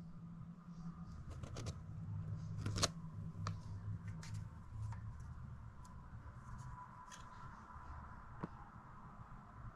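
A smartphone gimbal being handled and unfolded: scattered light plastic clicks and taps over a low steady hum, with a faint thin tone joining in about halfway through.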